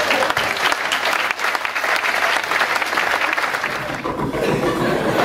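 Audience applauding, a dense patter of many hands clapping that thins out about four seconds in.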